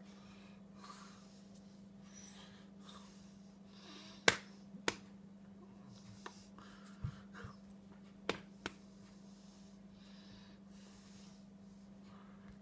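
Hands slapping and clapping against each other and against clothing while signing: a handful of sharp slaps, the loudest about four seconds in, with soft breaths between them, over a steady low hum.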